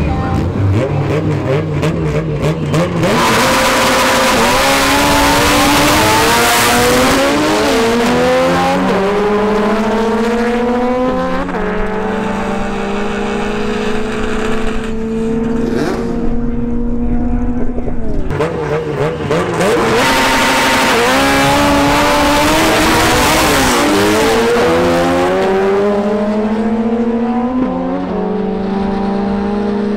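Honda Civic drag car launching at full throttle beside a second car, the engine's pitch climbing through each gear and dropping sharply at every upshift, four or five shifts in all. The same launch-and-shift run is heard again in the second half.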